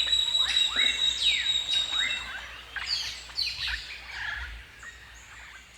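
Many birds calling at once, a chorus of short sweeping chirps and whistles, with a steady high whine through the first two seconds. The calls thin out and grow quieter over the second half.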